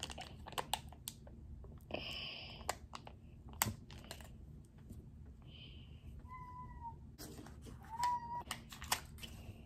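Small clicks and crinkles of a Kinder Joy egg's foil lid and plastic capsule being handled, with a cat meowing twice, briefly, past the middle and near the end.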